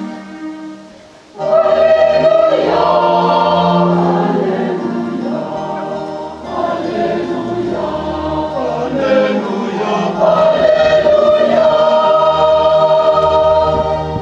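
Choir singing a gospel hymn with musical accompaniment. It comes in loudly about a second and a half in, after soft background music fades away.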